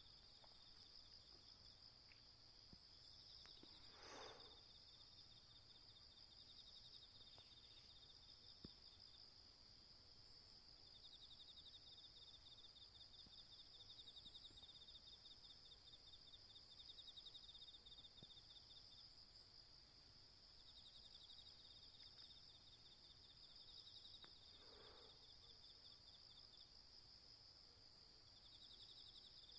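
Autumn crickets and other insects chirping in a steady high trilling chorus, with a second pulsing trill dropping in and out. Twice a short call cuts through the chorus.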